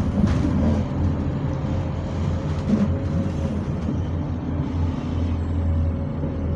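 Bus engine running, heard from inside the passenger saloon: a steady low rumble with a thin steady whine over it.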